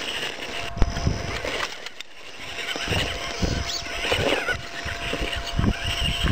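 Axial Wraith radio-controlled rock crawler's electric motor and gearing whining steadily as it crawls over rocks, with irregular low rumbles on the microphone.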